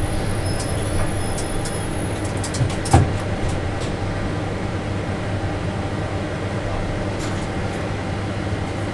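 Tram running through a tunnel: steady motor hum and rolling noise with a few held tones. Light ticks come in the first few seconds, and a single thump about three seconds in is the loudest moment.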